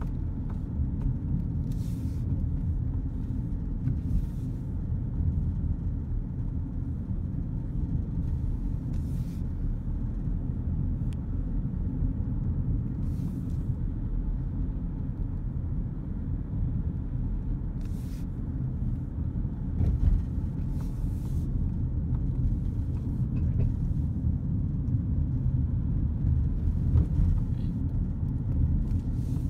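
A car driving along a country road, heard from inside: a steady low rumble of engine and tyres on the road surface, with a few short hissy bumps now and then.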